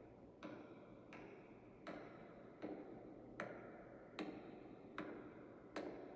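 Slow, measured footsteps: about eight sharp, echoing steps, one every three-quarters of a second.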